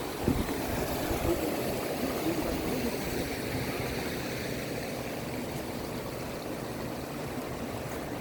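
Steady, even rushing of falling water from the Wah Kaba waterfall and its river.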